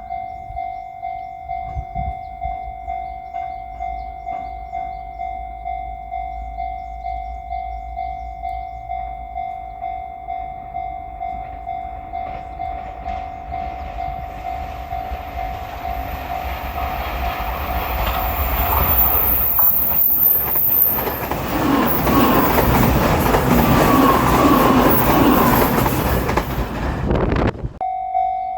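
Japanese level-crossing bell ringing its steady kan-kan, about one and a half strokes a second. A limited express train approaches and passes close by: its rumble and wheel clatter build over about ten seconds, with a high squeal, and drown the bell. A little before the end the train noise cuts off suddenly as the last car clears, and the bell rings on.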